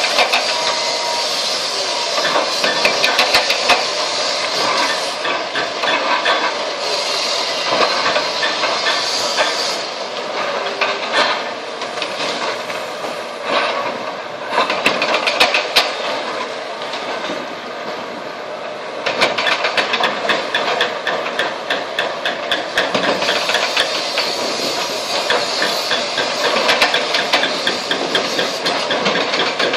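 Heavy demolition excavator working on a concrete bridge: steady machine noise with dense runs of rapid rattling knocks and crunches.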